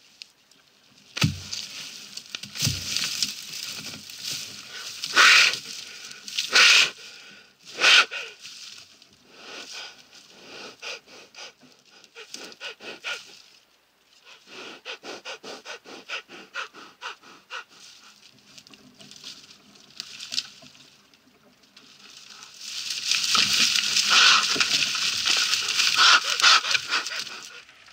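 A black rhino bull coming round from immobilisation drugs breathes hard, with loud sharp puffs of breath about 5, 7 and 8 seconds in and a regular run of breaths midway. Near the end comes a long stretch of crashing and crackling of dry branches as the rhino rams a fallen tree.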